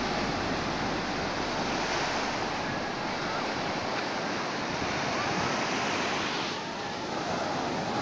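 Ocean surf breaking close to shore, with foam washing up the sand in a steady rush that dips briefly near the end.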